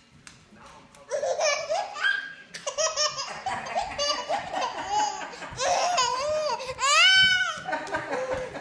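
Baby laughing hard in repeated bursts, starting about a second in, with a loud high squeal of laughter near the end.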